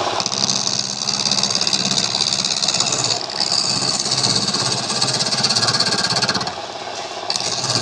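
A small motor-driven machine running steadily with a fast pulsing texture and a strong hiss, easing off briefly about three seconds in and again near the end.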